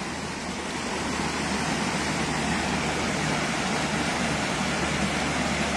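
Steady rush of water spilling over a low concrete weir into a shallow channel, with a faint low hum beneath it.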